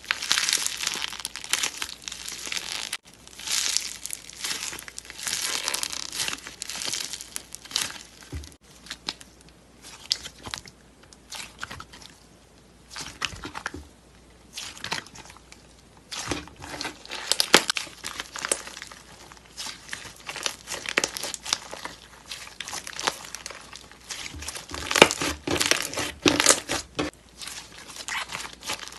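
Slime being squeezed, stretched and poked by hand, giving dense crackling and popping that swells and fades irregularly, with short pauses between bouts.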